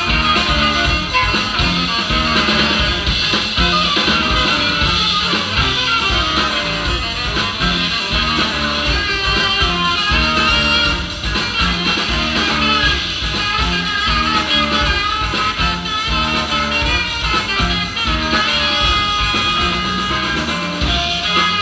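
Live band music playing loudly with a steady beat.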